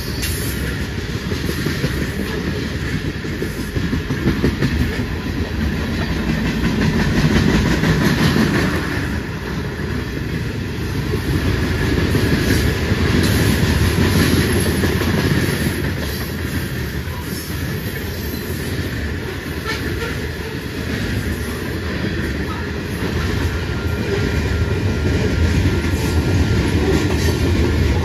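A freight train's covered hopper cars rolling past at close range: a steady rumble of steel wheels on rail with clickety-clack as the wheels pass over rail joints.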